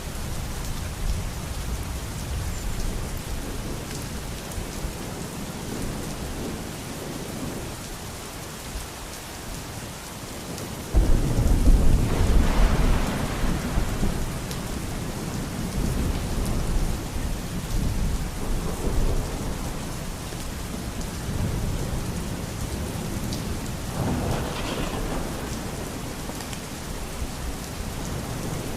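Steady rain falling, with a loud roll of thunder that breaks in suddenly about eleven seconds in and fades away over several seconds, then a second, weaker rumble later on.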